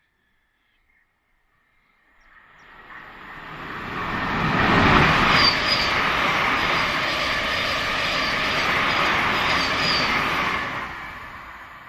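Passenger train passing through a station on the East Coast Main Line. It comes in from silence about two seconds in, runs loud and steady for about six seconds with a thin high wheel squeal over the rumble, then fades away.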